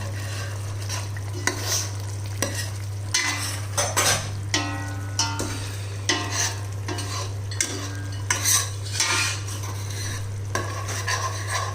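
A metal spoon stirring and scraping around a pot of mutton curry gravy in irregular strokes, some with a light metallic ring, over a steady low hum.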